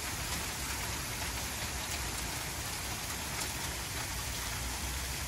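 Small hail falling steadily with rain onto a concrete patio and lawn: an even hiss with scattered faint ticks.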